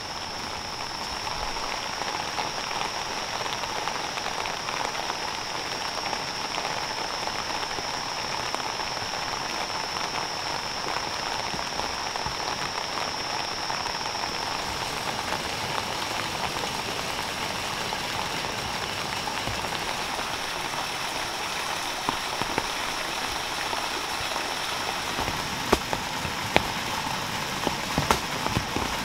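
Steady rain falling on leaves and soil, an even hiss, with a steady high-pitched tone running over it and a few sharp knocks near the end.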